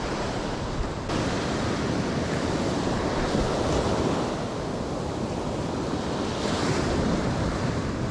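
Ocean surf washing up the beach, with wind buffeting the microphone: a steady rushing noise that gets a little louder about a second in.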